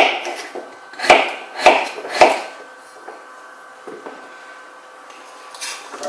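Kitchen knife chopping potatoes on a wooden cutting board: four sharp chops in the first two and a half seconds, then a faint knock and quiet.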